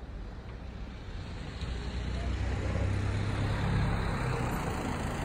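Low engine rumble of a passing motor vehicle, growing louder from about a second in and easing slightly near the end.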